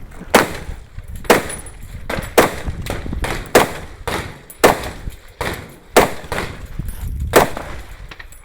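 A string of gunshots fired at a steady pace, about one a second, seven in all, with another landing right at the end. Each is a sharp crack with a short echo trailing after it.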